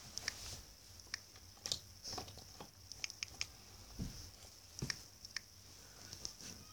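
Faint irregular taps and clicks of fingers typing on a tablet's touchscreen keyboard, with a quick run of taps about three seconds in and a couple of duller thumps shortly after, over a steady faint high hiss.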